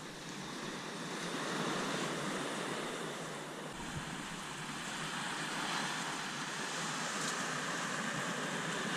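Surf on a sandy beach: waves breaking and washing in as a steady rushing wash that swells and eases, with some wind.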